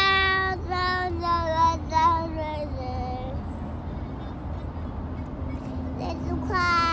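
A toddler singing in a high voice: a run of held notes for the first few seconds, a pause, then one more long note near the end. A steady low car-interior rumble runs underneath.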